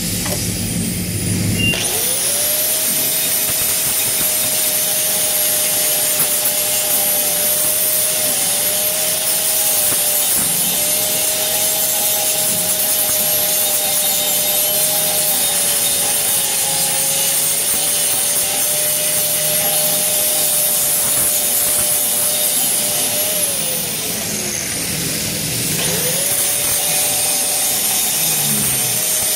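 Angle grinder grinding steel. It spins up about two seconds in and runs at a steady high whine for about twenty seconds. It then winds down and starts up again near the end.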